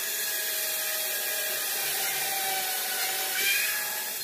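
Cordless drill running steadily under load as it works into the wood of a kitchen cabinet, its motor whine rising briefly about three and a half seconds in.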